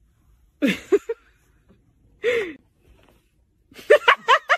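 A person's short breathy gasps: two separate ones about a second and a half apart, each rising then falling in pitch. Near the end comes a quick run of short vocal sounds.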